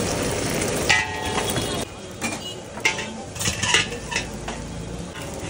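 Metal utensil stirring and scraping egg fried rice in a large iron wok, over a steady frying sizzle. The sizzle drops away about two seconds in, leaving sharp, irregular clanks of metal on the wok.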